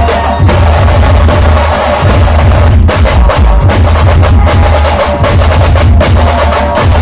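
Dhol-tasha band playing loudly: dense, rapid drumming over a heavy, booming bass, with a held melody line above it.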